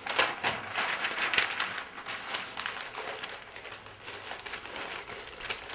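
Large paper signs rustling and crinkling as they are handled and unfolded, in quick irregular bursts.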